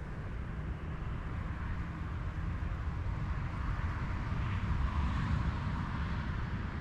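Distant road traffic: a steady low rumble with a soft hiss above it, swelling a little about four to five seconds in as a vehicle passes.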